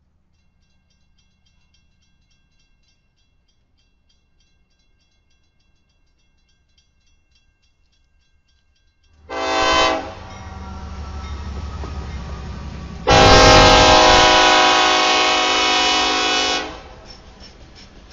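Diesel locomotive horn on a GE AC44C6M passing close by: a short blast about nine seconds in, then a long blast of about three and a half seconds. The locomotive's engine and the train's wheels on the rails rumble from the first blast on and go on after the horn stops. Before the horn there is only a faint high ticking.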